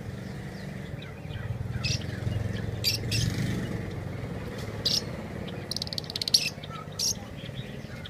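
Caged pet birds such as lovebirds and budgerigars chirping, with short, sharp calls every second or so and a fast rattle about three-quarters of the way through, over a low rumble that is loudest in the first half.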